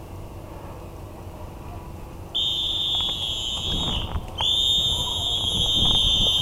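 Two long, shrill whistle blasts, each about two seconds, starting a couple of seconds in with a short break between them; each dips slightly in pitch as it fades out.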